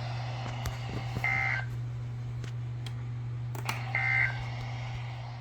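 Weather radio sending the digital SAME/EAS data code as two short buzzy tone bursts, about a second and four seconds in. This is the end-of-message signal after the severe thunderstorm warning. A steady low hum runs beneath, with a few faint clicks.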